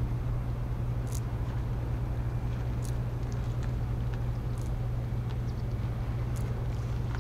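A steady low mechanical hum with an even background rush, and a faint short high tick about every one and three-quarter seconds.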